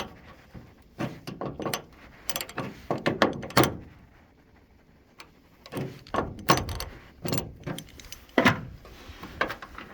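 Hand tools clicking and clanking on metal car parts in irregular clusters of short knocks and clicks, as the bolts holding a bracket in the car's scuttle are tightened.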